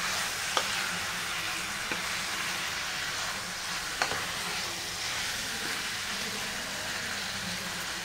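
Masala-marinated chicken pieces sizzling in hot oil in an open pan, a steady hiss, while a wooden spatula turns them with a few sharp knocks against the pan.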